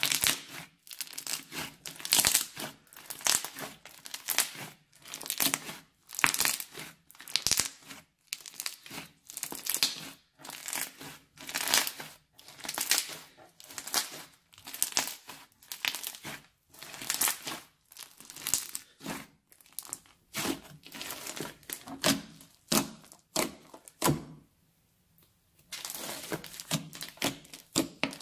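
Glossy slime studded with foam beads being squeezed, stretched and pressed by hand, giving repeated squishing, crackling bursts about one or two a second, with a short quiet gap near the end.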